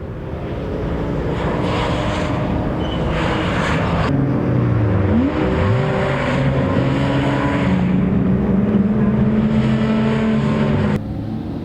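Racing BMW engine running hard at speed, its pitch rising and falling through gear changes. The sound changes abruptly about four seconds in and again near the end.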